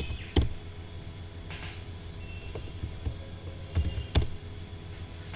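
A few computer keyboard keystrokes, single sharp clicks, the loudest about half a second in and just after four seconds, over a low steady hum.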